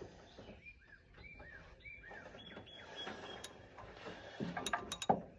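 Hand tools clicking and knocking against metal while old spark plugs are worked loose in a tight engine bay, with a few sharp clicks and a knock near the end. A few faint high chirps sound in the first half.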